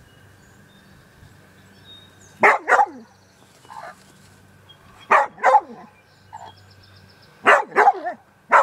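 Dog barking in quick clusters of two or three barks, roughly every two and a half seconds, with fainter short calls in between.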